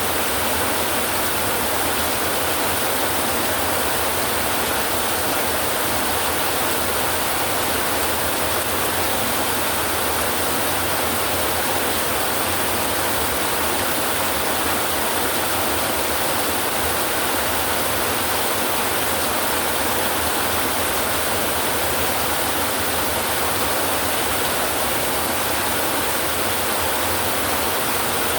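Heavy rain falling steadily on a tin roof, an even, unbroken hiss with no thunderclaps.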